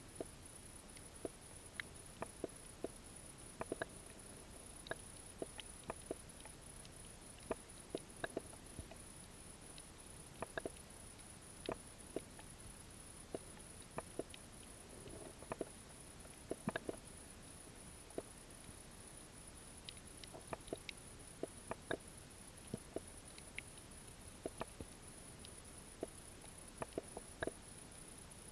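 Underwater ambience picked up by a submerged camera: sharp, irregular clicks and snaps, a few each second, over a steady hiss and a thin high whine.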